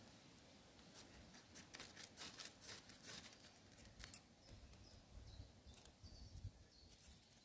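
Quick, faint scraping strokes on birch bark, shaving it into tinder for a fire, for the first few seconds. After that come a low rumble and a few faint high chirps.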